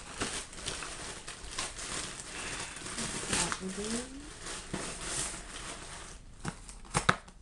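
Plastic packaging rustling and crinkling as a shipping package is opened by hand, with two sharp snaps near the end.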